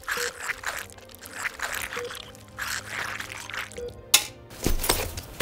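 Wet squelching and dribbling as a surgical probe works in the wet flesh of a cut plant 'patient', under a short electronic beep that repeats about every two seconds. A sharp click comes about four seconds in, then a louder burst of noise near the end.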